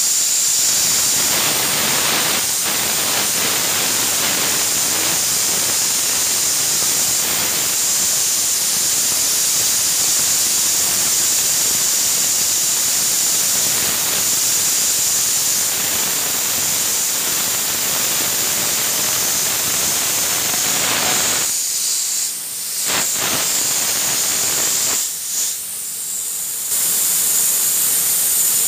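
A compressed-air nozzle at about 7 bar blasts a hand-held ball bearing, spinning it at very high speed: a loud, steady hiss with a high whine, sounding like a jet engine. Near the end the air cuts out briefly twice before coming back on.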